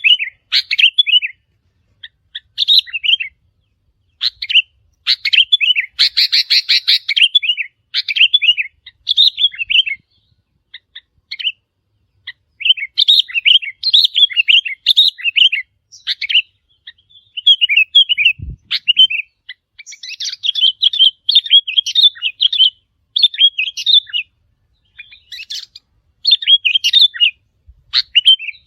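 Sooty-headed bulbul song: short, bubbly whistled phrases repeated over and over with brief pauses. A faint low thump comes about two-thirds of the way through.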